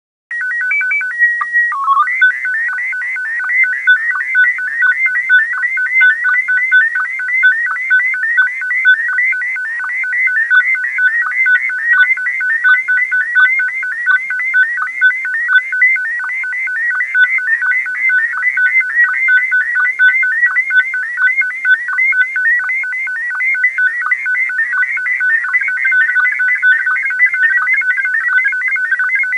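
Slow-scan television (SSTV) signal: a short header of steady tones with a brief lower blip, then about two seconds in a continuous fast warbling of beeping tones as a picture is sent line by line.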